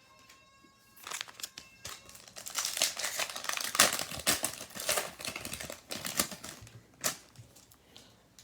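A foil trading-card pack wrapper being torn open and handled, with dense irregular crinkling for several seconds and a last sharp crackle near the end.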